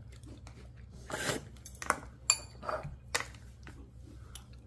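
Training chopsticks and a spoon clinking and scraping against bowls as a child eats: a few scattered light clinks, with one brighter, slightly ringing clink a little over two seconds in, over a faint steady low hum.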